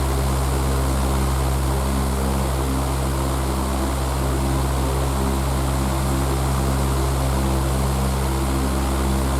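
Electric fan running steadily: a low, even motor hum under the constant rush of air from the spinning blades.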